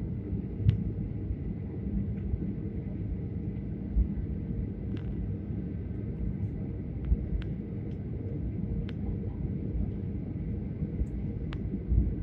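Airliner cabin noise on approach: a steady low rumble of the engines and airflow, with faint steady hums and a few small clicks scattered through it.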